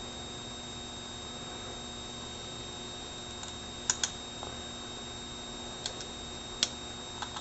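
A few light, sharp clicks of small metal hand tools being handled and set down, two close together about halfway through and three more spaced out near the end, over a steady electrical hum.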